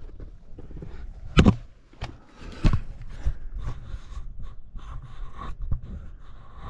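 Scrapes and small knocks of boots and hands on rock while scrambling, with two sharper knocks, one about a second and a half in and another a little over a second later.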